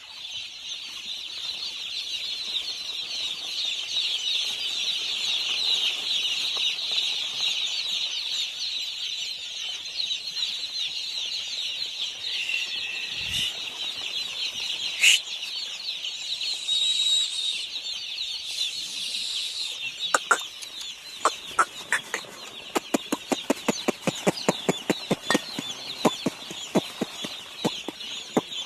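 A dense chorus of many day-old chicks peeping continuously, high-pitched and steady. About two-thirds of the way through, a rapid run of sharp clicks or taps, several a second, sounds over the peeping.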